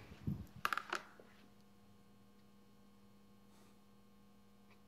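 Steady low hum in a quiet room, with a few short, soft breathy sounds in the first second.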